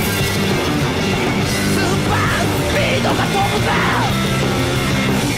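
Loud heavy rock music, with a yelled vocal line in the middle.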